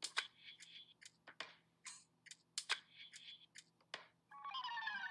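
Short scattered clicks and rustles, a few each second, from a person turning around in a seat close to the microphone, with clothing and hair brushing and the seat shifting. Music comes in about four seconds in.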